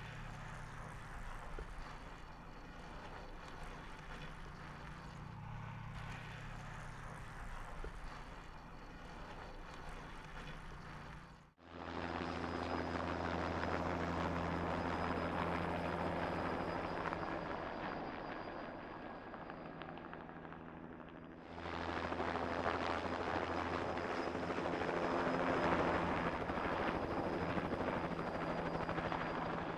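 A steady low hum until a sudden cut about a third of the way in. Then a helicopter in flight, a steady rotor and engine drone with a thin high tone, which eases off and then comes back louder all at once about two-thirds of the way in.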